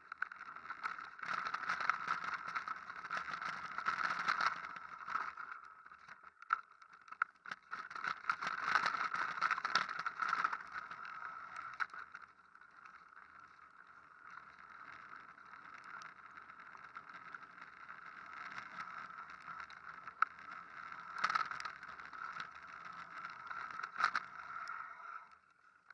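Downhill mountain bike running fast over a rocky gravel trail: tyres rumbling over stones and the bike rattling, with many sharp knocks from impacts. Loudest through the first half, quieter in the middle, and it falls away just before the end.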